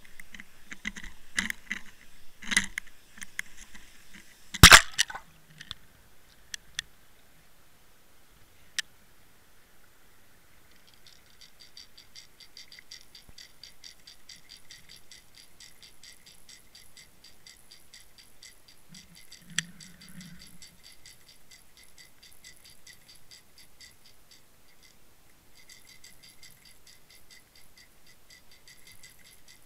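Underwater camera rig towed through water on a fishing line with a jointed crankbait lure. It starts with several knocks, the loudest about five seconds in. From about eleven seconds in comes a fast, even ticking rattle, with a short break near the end.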